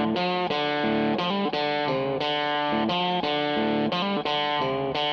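Background music: an electric guitar with effects plays a melody of short separate notes at a steady level.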